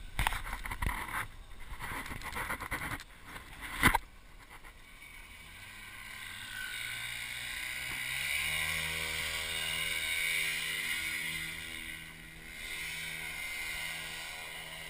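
Rough noise and a loud knock about four seconds in, then the PAP paramotor's ROS 125 two-stroke engine throttling up, its pitch rising, and running steadily at takeoff power with the propeller's whirr.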